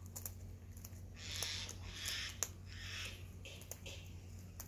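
Sulphur-crested cockatoo nibbling and crunching a biscuit held in its foot: scattered sharp clicks and a few short crackly bursts.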